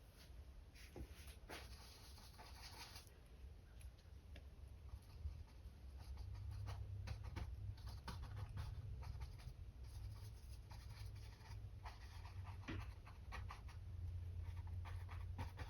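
Faint, irregular tapping and scratching of a mop brush dabbing paint onto a stretched canvas, over a low steady hum that grows stronger about six seconds in.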